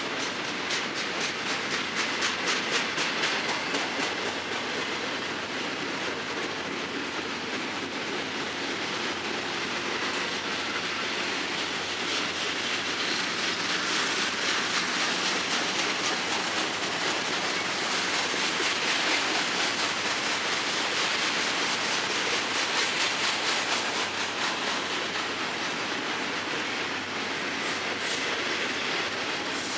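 Cars of a long Florida East Coast freight train rolling past, a steady rumble of wheels on rail with rapid clacking over the rail joints, most distinct near the start and again near the end.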